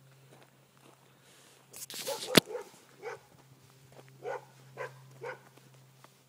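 A dog barking: four short barks in the second half. Just before them, a burst of noise ends in a single sharp knock, the loudest sound.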